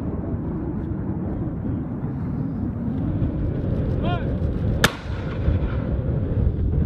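A steady low rumble, then a short shouted call about four seconds in, followed by a single sharp blast of a light mortar firing, its report ringing out for about a second.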